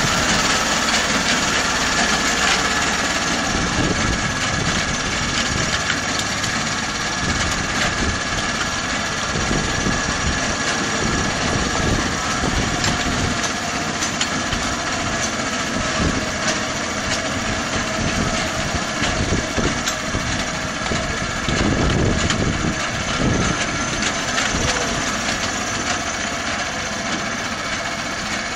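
Small engine of a 7¼-inch gauge diesel-outline miniature locomotive running steadily at close range as the locomotive moves along the track, with scattered short clicks.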